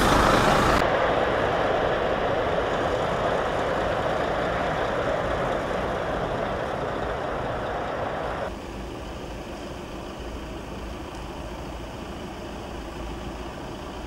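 Heavy diesel engine of a MAN fire engine idling with a steady rumble. A high hiss stops abruptly about a second in. Past the middle the level drops suddenly to a quieter, more distant engine hum.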